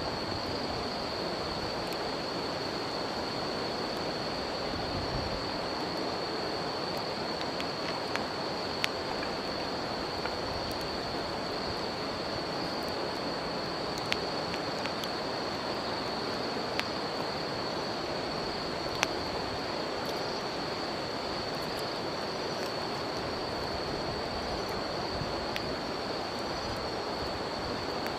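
A river flowing steadily with a constant high-pitched trill of insects over it, and a wood campfire giving a few sharp crackles and pops.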